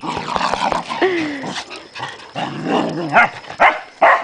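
Dogs play-fighting, giving rough low vocal sounds and a whine, then a run of short, sharp barks in the last second or so.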